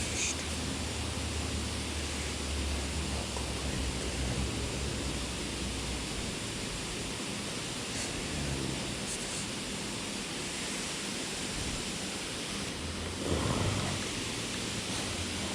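Steady rushing of water spilling over a pond dam, with a brief rustle near the end.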